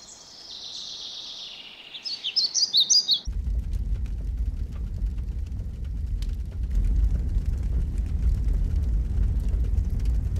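Birds chirping over a high steady hiss for the first three seconds. Then a log fire in an open hearth crackles, with scattered pops over a low, steady rumble of flames.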